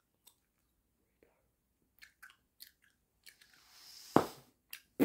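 Bubble gum being chewed with a few soft wet clicks, then air blown into a large gum bubble that bursts with a sharp pop about four seconds in. A second sharp snap of gum follows near the end.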